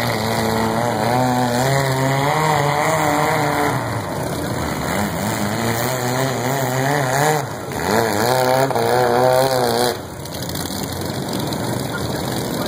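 Riding lawn mower engines running and revving unevenly, their pitch wobbling up and down. The revving drops away about ten seconds in, leaving a lower, steadier engine sound.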